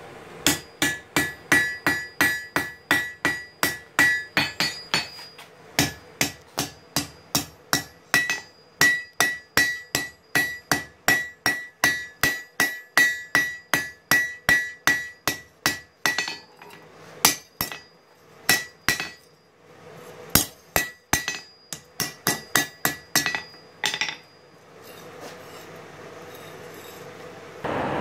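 Hand hammer forging a red-hot steel knife blade on an anvil: runs of quick blows, about three a second, each with a bright ring from the anvil, broken by short pauses. The hammering stops about four seconds before the end, leaving a faint hiss.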